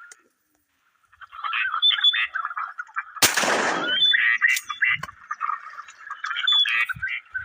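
Ducks quacking, with a single shotgun shot about three seconds in that rings out briefly; the quacking carries on after the shot.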